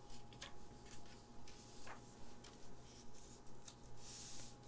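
Fingertips tapping and brushing over the glossy paper pages of a Pokémon TCG player's guide booklet as a page is turned: soft scattered taps, with a brief paper rustle about four seconds in.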